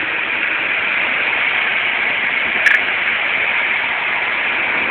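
Steady rushing driving noise heard from inside a moving 1977 Porsche 930 Turbo, a mix of wind, road and engine, with a short sharp click just under three seconds in.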